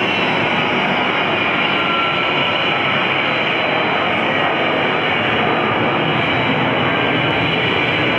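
Light aircraft's piston engine and propeller running steadily at taxi power: a loud, even drone with a faint steady high whine on top.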